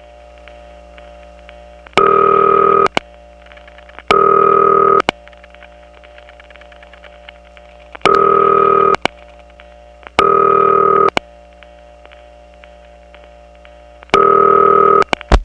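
Telephone ringback on a line through a number one step-by-step exchange: five loud ring bursts of about a second each, in pairs with a longer gap after each pair. Between the bursts the line is not silent: the step office's power supply carries a steady hum with dial tone and reorder in the background. A couple of sharp clicks near the end.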